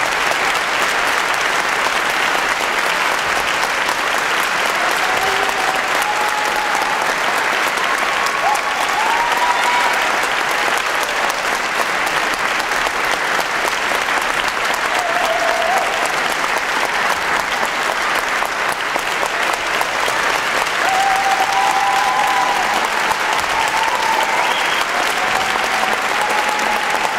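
Audience applauding steadily, an unbroken round of clapping in a large hall.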